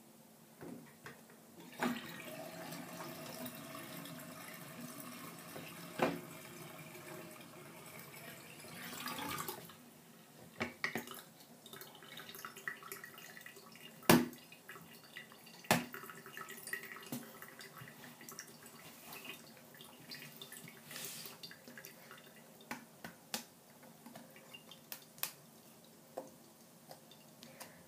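Water running in a bathroom sink for about eight seconds, then drips and a few sharp knocks and clicks as a wet plastic toy walkie-talkie is picked up and handled, the loudest knock about halfway through.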